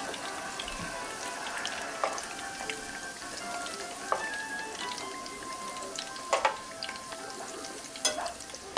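Meatballs frying in oil in a skillet, a steady sizzle and crackle, with a few sharp clicks of metal tongs against the pan as they are lifted out.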